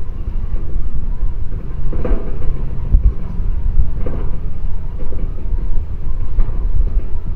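Heavy drilling rig running steadily while its drill bit bores deep into the ground for a bridge foundation: a loud, continuous low rumble with a few faint knocks.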